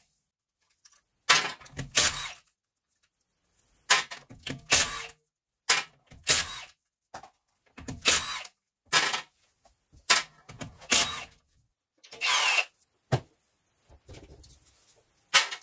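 Cordless impact wrench undoing wheel nuts in short bursts, mostly in pairs, about six times over, with sudden silence between bursts.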